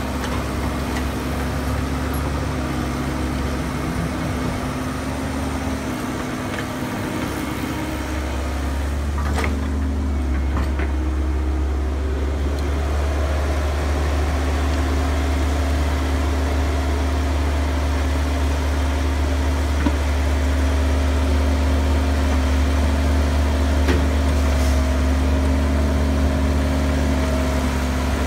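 Caterpillar crawler excavator's diesel engine running steadily under load as it digs and swings dirt into a dump truck, a deep hum with steady engine tones. A couple of faint knocks about ten seconds in, and the engine grows slightly louder after that.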